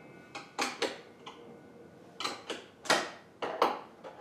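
A series of short, sharp knocks and clicks, about eight in small clusters. They come from small wooden pen-blank pieces and a miter saw's bolted stop-block jig being handled and set down on the saw table.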